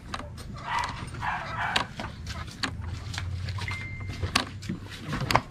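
A dog barking in a few short bursts, mixed with several sharp clicks and knocks.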